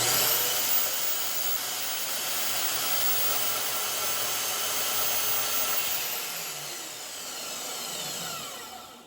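Machine-tool spindle motor spinning up quickly with a rising whine, running steadily at speed, then winding down with a falling whine over the last few seconds.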